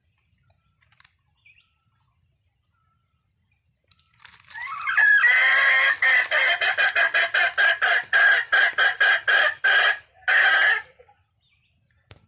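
A bird calling: one long call that rises at the start, then goes on as a fast run of evenly pulsed notes for about six seconds, with a last note after a short break.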